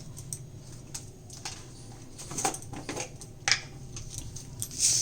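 Scattered light clicks and taps of a spoon and spice containers being handled, with a few louder brief scrapes near the middle and end, over a faint steady low hum.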